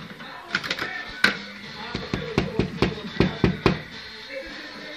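Fruit machine being played: a couple of sharp clicks, then a quick, even run of about eight clicks, roughly four to five a second, as its buttons are pressed.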